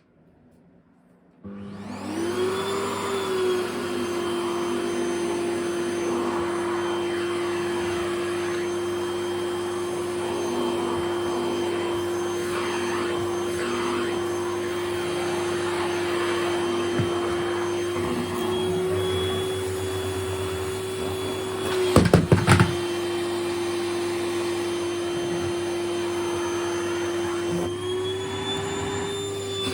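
Vacuum cleaner switched on about a second and a half in, spinning up to a steady whine as it sucks at a camisole. A quick cluster of sharp clicks comes about two-thirds of the way through, and the motor's pitch rises slightly near the end.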